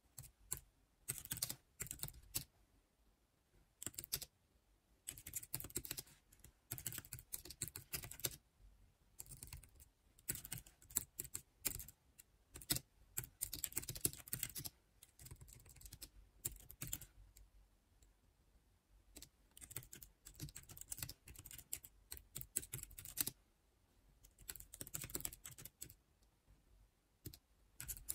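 Typing on a tablet's backlit keyboard case: runs of quick key clicks in bursts, broken by short pauses.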